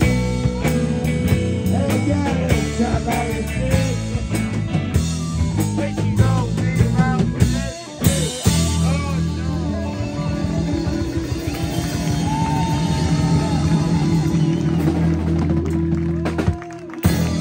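Live rock band playing electric guitars and a drum kit, with a male singer on microphone. The band drops out for a moment about eight seconds in, then plays on, and near the end it cuts off with a closing hit.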